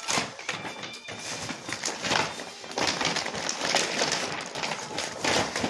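Wrapping paper being torn and crumpled by hand as a present is unwrapped, in a run of irregular ripping and crackling rustles.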